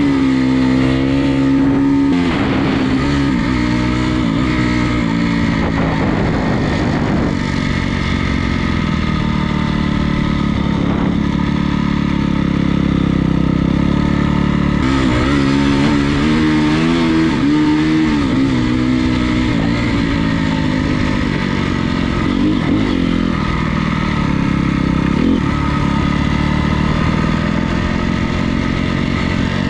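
Honda CRF250R's single-cylinder four-stroke engine running under way, its revs rising and falling as the rider rolls on and off the throttle and shifts. There is a stretch of quick rev changes about halfway through and a couple of short blips near the end.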